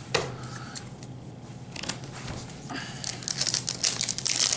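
Foil wrapper of a Pokémon trading-card booster pack being handled and torn open: a few light clicks and rustles, then from about three seconds in a dense run of crinkling that grows louder.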